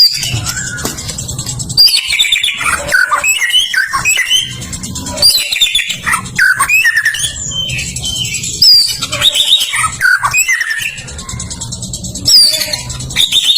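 White-rumped shama (murai batu) singing a fast, varied song of rich whistles, with quick up-and-down glides in pitch, in nearly unbroken phrases.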